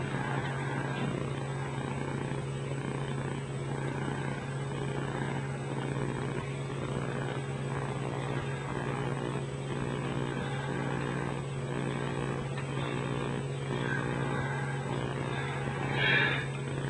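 A steady low mechanical hum, with a short louder sound about a second before the end.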